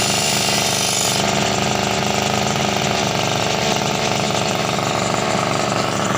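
Small high-speed motor-driven machine running steadily and loudly, with a fast buzzing rhythm; a high hiss drops away about a second in.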